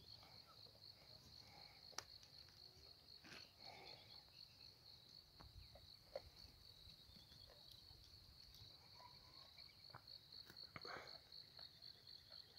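Crickets chirping faintly in a steady, rapid, high-pitched pulse, with a few faint clicks and rustles.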